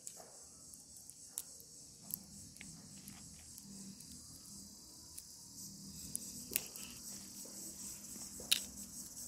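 Steady high-pitched insect chorus, with scattered sharp clicks and cracks from a dried red bead tree (manjadi) pod being split open by hand. The loudest cracks come about six and a half and eight and a half seconds in.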